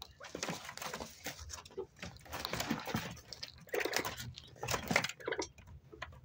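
Young chukar partridges scuffling and shifting in a crowded wicker cage: irregular bursts of scratchy rustling and fluttering.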